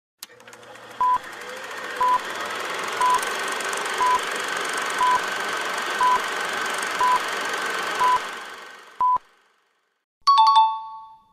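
Quiz countdown timer: short electronic beeps once a second, nine in all, over a steady droning background track that fades out after the last beep. A short bright chime sounds about a second later.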